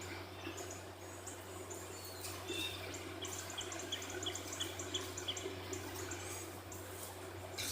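Small birds chirping in the background, with a quick run of short, evenly spaced high chirps in the middle, over a steady low hum.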